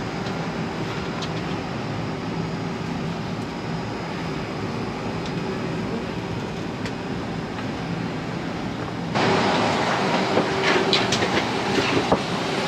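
Steady cabin noise inside a Boeing 757 after landing: a rushing hum with a few steady tones. About nine seconds in it jumps abruptly to a louder stretch of cabin noise with scattered clicks and knocks.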